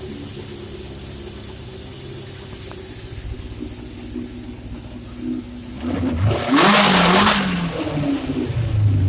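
Freshly rebuilt 1977 Honda CB750 Super Sport's air-cooled inline-four engine idling, then revved once about six and a half seconds in, rising in pitch and dropping back to idle.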